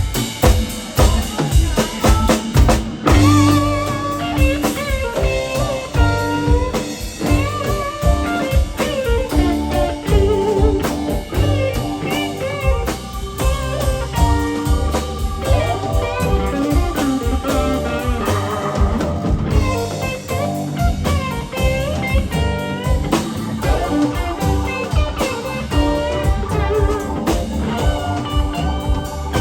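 Live rock band playing an instrumental passage. Drums play alone at first, then electric guitars, bass and keyboards come in about three seconds in, with lead guitar lines over a steady drum beat.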